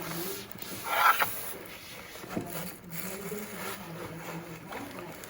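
A short mechanical rattle about a second in, then a sharp click, over a steady low hum.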